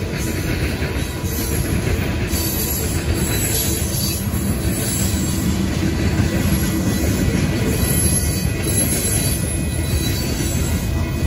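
Union Pacific freight train of covered hopper cars rolling past a grade crossing: a steady rumble and clatter of steel wheels on the rails.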